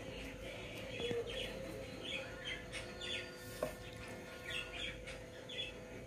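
Budgerigars chirping: short, high chirps at irregular intervals, about two a second, with a single sharp tick about three and a half seconds in.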